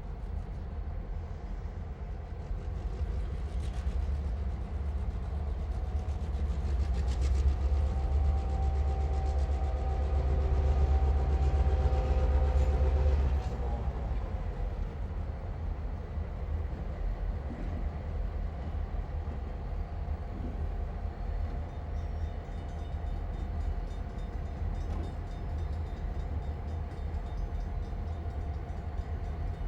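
Railway yard with a train rumbling heavily. It grows louder several seconds in, with a few steady tones riding over the rumble, then drops off suddenly about thirteen seconds in and settles back to a lower rumble.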